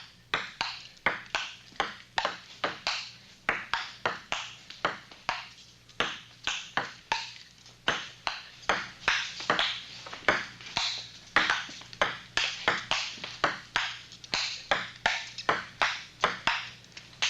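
Table tennis rally: a ball clicking sharply off paddles and the table, about two to three hits a second in an uneven back-and-forth rhythm.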